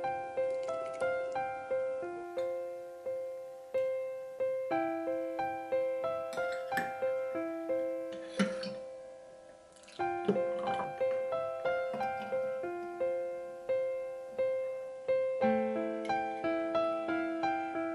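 Background keyboard music: a gentle piano-like melody of single notes, each fading away, with a brief pause about halfway through.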